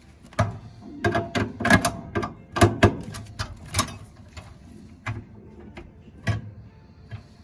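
Irregular sharp metal clicks and clinks of hand tools and furnace parts being handled while the gas valve is taken off, a quick cluster over the first few seconds and one more knock near the end.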